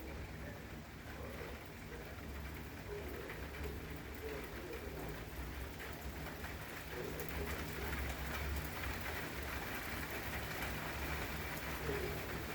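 Rain falling steadily during a thunderstorm, with scattered drops ticking, over a low steady rumble. The rain grows a little heavier about seven seconds in.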